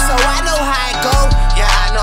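Hip hop music with a steady drum beat over deep bass.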